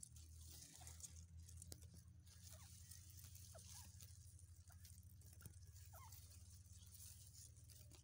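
Near silence: a faint steady low hum, soft rustling of rice leaves, and a few faint, short chirps scattered through.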